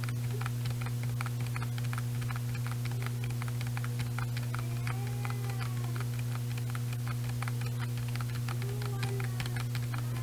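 Computer keyboard being typed on: a rapid, irregular stream of keystroke clicks over a steady low electrical hum.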